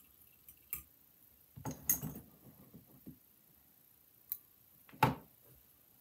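Scattered small clicks and taps of fly-tying at the vise: thread wrapped on the hook from a ceramic-tube bobbin and fly-tying scissors snipping the thread's tag end. The sharpest, loudest click comes about five seconds in.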